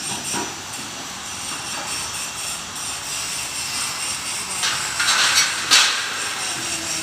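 Steel telescopic mast being raised by a hand-cranked cable winch: steady mechanical running of the winch and cable, with a louder metallic rattle about five seconds in and a sharp clank just before six seconds as the steel sections slide out.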